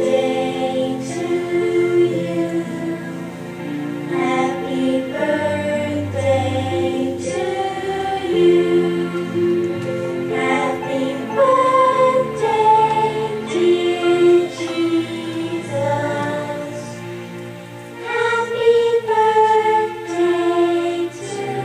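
Live slow gospel song: a group of voices singing over keyboard and bass, with held notes and chords.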